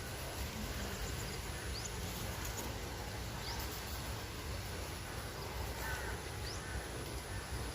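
Farm morning ambience: a steady low outdoor hum with a few faint, brief bird chirps and a distant call or two.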